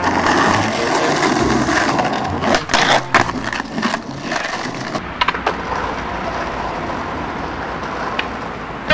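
Skateboard wheels rolling on rough asphalt, with several sharp clacks of the board about three seconds in and a couple more around five seconds.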